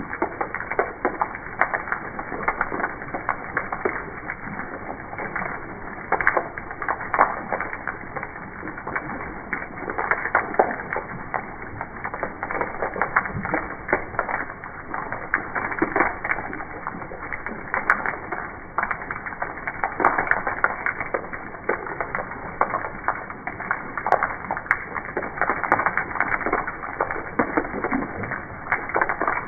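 Rain falling on weathered wooden steps: a dense, irregular patter of raindrops tapping the boards.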